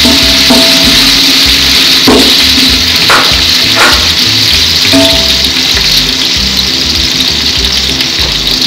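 Hot oil sizzling steadily as sliced onions fry in a large aluminium pot, with a wooden spatula stirring and scraping the pot a few times around the middle. Background music plays underneath.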